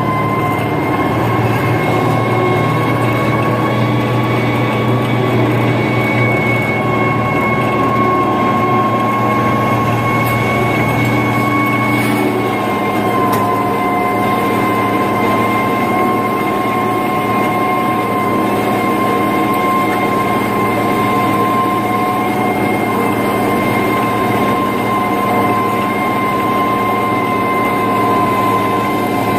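International Harvester 3588 2+2 tractor's turbocharged six-cylinder diesel running steadily under load while pulling a 25-foot disc through corn stubble, with a steady high whine over the engine drone.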